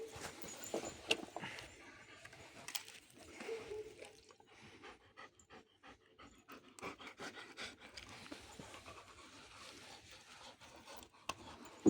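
A dog panting quietly in quick, even breaths.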